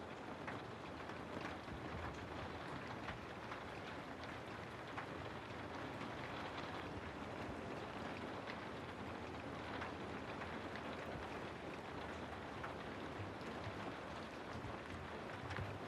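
Steady rain falling through forest trees: an even hiss with many scattered drops ticking on leaves.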